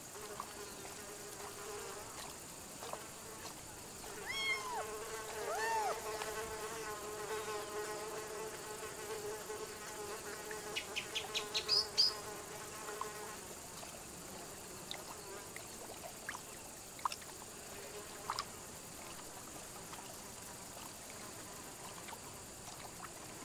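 A flying insect buzzing in a steady hum that swoops up and down in pitch a couple of times, then fades out about halfway through. A quick run of ticks comes just before it fades, and a few faint clicks follow.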